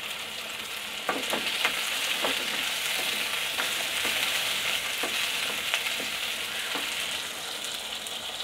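Shallots sizzling in hot sesame oil in a clay pot, with black peppercorns just added. A wooden spoon stirs them, knocking and scraping against the pot in short irregular strokes from about a second in.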